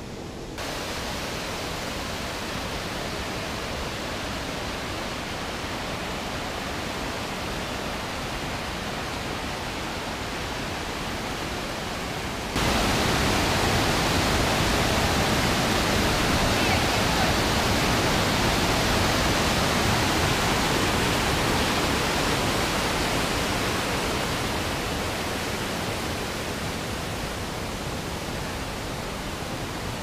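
Rushing water of a cascading waterfall, a steady hiss of white water that jumps much louder about twelve seconds in and slowly eases off near the end.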